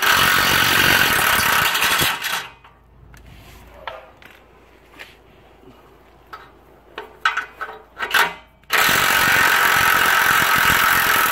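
Pneumatic impact wrench hammering on a suspension or axle bolt in two bursts of about two and a half seconds each, one at the start and one near the end, with light metallic clicks and taps of hand tools between them.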